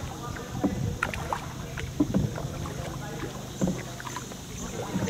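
Small outrigger tour boat moving across calm water: a steady low drone with scattered knocks against the hull, the drone dying away about four seconds in.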